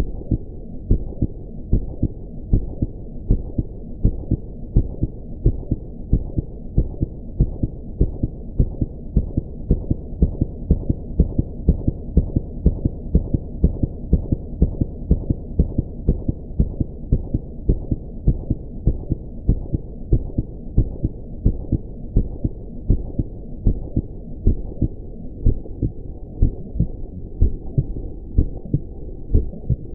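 Heartbeat sound effect: low, regular thumps over a steady low hum.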